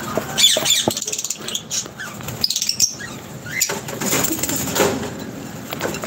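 Pet lovebirds chirping in short high calls, with wing flapping and a few sharp knocks among them.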